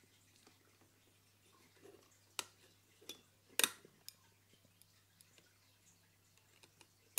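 Clear acrylic panels being handled and fitted together: a few sharp plastic clicks and taps, the loudest about three and a half seconds in, with faint small ticks between.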